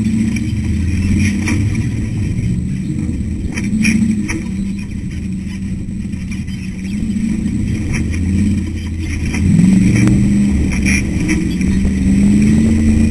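Ultra4 race car's engine heard from inside the car, revving up and down as it drives over rough desert terrain, with occasional sharp knocks and clatter from the chassis. The engine climbs and gets louder about ten seconds in.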